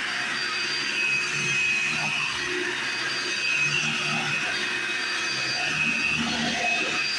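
Hoover Runabout Deluxe stick vacuum running steadily on carpet, a constant motor noise with a high whine.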